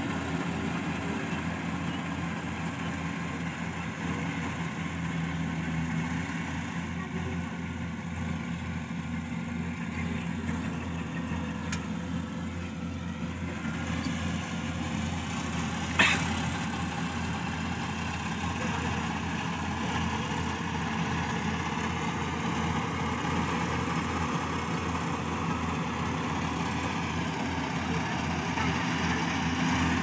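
Daedong combine harvester's diesel engine running steadily while harvesting rice, a continuous low drone. A single sharp click about halfway through.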